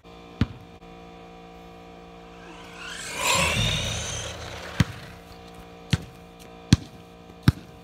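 Background music holding a steady sustained chord, with sharp percussive clicks about once a second in the second half. About three seconds in, a louder rushing noise with a low rumble swells and fades over a second or so.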